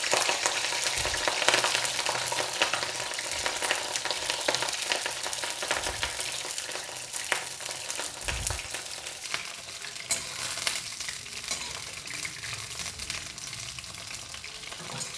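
Cauliflower florets frying in hot oil in a kadhai: a dense crackling sizzle, loudest at the start and slowly dying down, with a few soft thumps. A spatula stirs the florets near the end.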